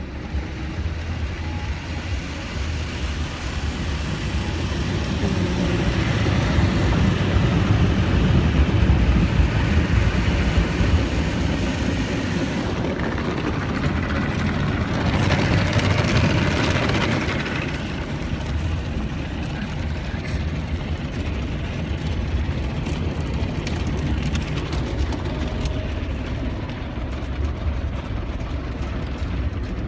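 Automatic car wash heard from inside the car: water spray and spinning cloth brushes working against the windows and body over a steady low rumble. It grows louder about six seconds in and turns hissier for a few seconds around the middle, then settles.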